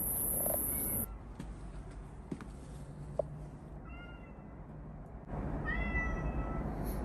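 Domestic cat meowing in greeting: a short meow about four seconds in, then a longer, level meow about two seconds later. Two sharp clicks come between them.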